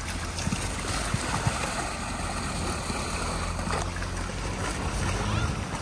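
An off-road vehicle's engine running steadily while its tyres churn through muddy water, with water sloshing and splashing.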